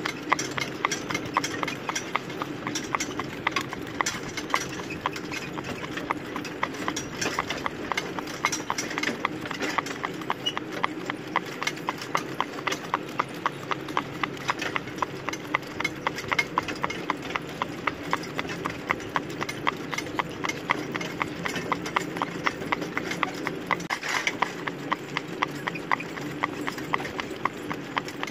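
Norwegian fjord horse in harness, hooves clip-clopping on a gravel road in a quick, even rhythm, over a steady rumble.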